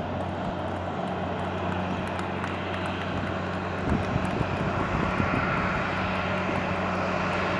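Boeing 737-800 jet engines running at taxi power as the airliner taxis: a steady jet roar with a low hum underneath and a whine that comes up about halfway through.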